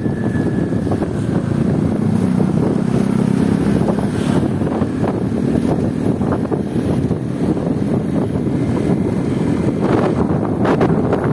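Wind buffeting the microphone as a steady low rumble, with a few faint knocks near the end.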